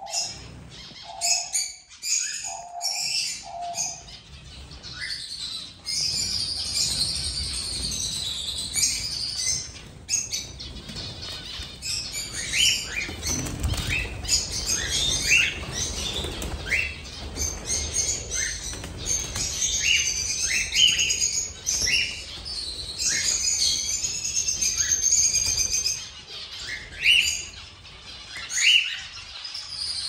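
Aviary full of zebra finches and cockatiels: many birds chirping and calling together, with a run of short upward-sweeping calls and wings flapping, the flapping strongest about halfway through.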